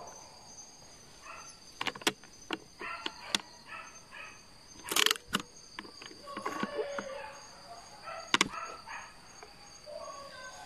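Footsteps crunching through dry leaf litter with irregular twig snaps, the loudest about five seconds in, over a steady high drone of forest insects.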